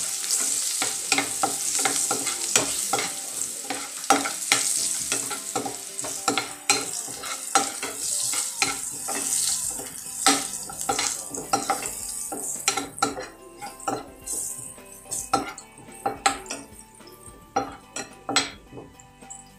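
Sliced onions and spices sizzling in oil in a non-stick frying pan while a spatula stirs, scrapes and taps against the pan. About two-thirds of the way through, the sizzle dies down, leaving mostly the spatula's clicks and scrapes.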